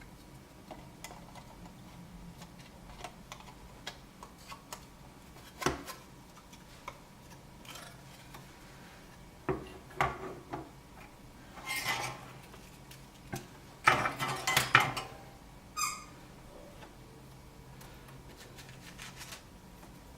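Small tools and parts being handled while a new relay is fitted onto a refrigerator control board: scattered light clicks and clinks, with a cluster of louder taps about three-quarters through and a short ringing clink just after.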